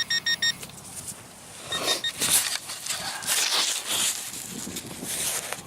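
Metal detector giving a quick run of short, high beeps, then three more, as it picks up a buried target; then scraping and crunching of soil being dug out of the hole.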